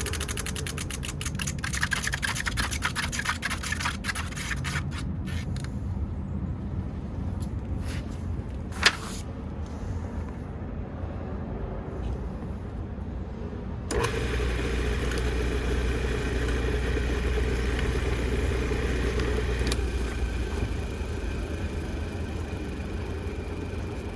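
Half-horsepower, 1725 RPM Atlas AC electric motor (model 2502). Over the first six seconds a rapid ticking slows and fades as it winds down, and a single sharp knock comes about nine seconds in. About fourteen seconds in it is switched back on and runs with a steady hum.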